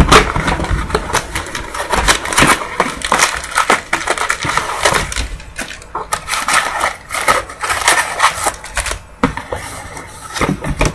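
Foil trading-card packs and cardboard packaging crinkling and rustling as they are handled, with many small irregular crackles and taps.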